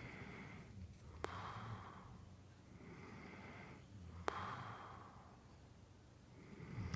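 A man snoring in his sleep, two slow breaths about three seconds apart. Each breath in carries a low, rumbling snore, and each breath out opens with a sharp click and a breathy rush of air.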